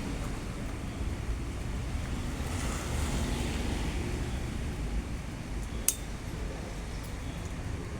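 Wind buffeting the microphone in a steady low rumble, with one sharp click about six seconds in.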